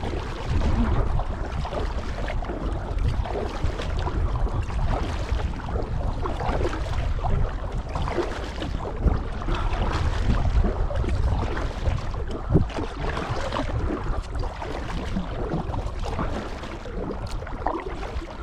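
Kayak paddle dipping and splashing in canal water, with wind rumbling on the microphone. There is an occasional sharper knock, the loudest about twelve and a half seconds in.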